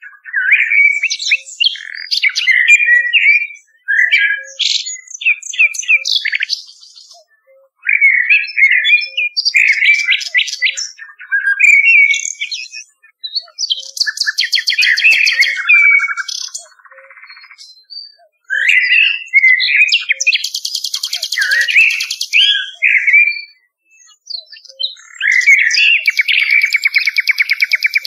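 Nightingale and blackbird song from a recording: phrases of clear whistles, warbles and rapid trills, each a few seconds long, broken by short pauses.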